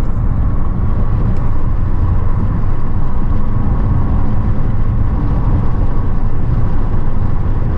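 Car driving with a steady, low rumble of engine and road noise.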